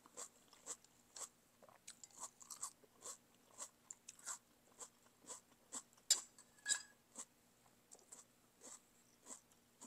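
Close-miked chewing of a mouthful of beef noodle soup: wet mouth clicks and smacks at roughly two a second, with two louder clicks about six seconds in.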